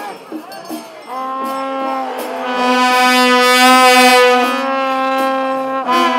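Several long straight brass trumpets (Newar pwanga) blown together on one sustained drone note. It starts about a second in, after crowd voices, swells louder toward the middle and breaks off briefly near the end before sounding again.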